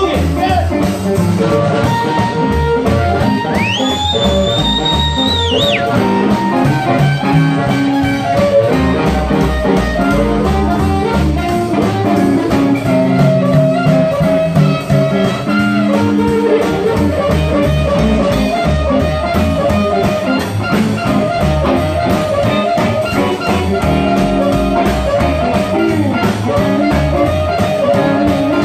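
Live blues band playing a boogie: amplified blues harmonica played into a handheld microphone, with electric guitar, upright bass and drums keeping a steady beat. A single high note bends up and is held about three seconds in.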